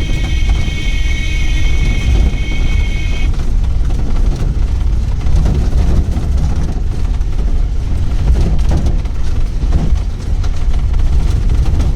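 Pickup jeep driving on a rough dirt road, a loud, steady low rumble of engine and road noise. A steady high-pitched tone of several pitches is held for about the first three seconds, then stops.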